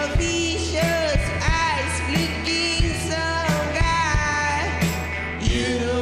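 Garage rock band playing live: male lead vocals sung over electric guitars and a drum kit.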